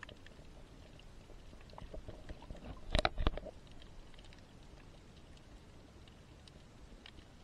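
Underwater ambience picked up by a submerged camera in shallow sea water: a low muffled rumble with scattered faint clicks. About three seconds in, a brief louder rush of noise.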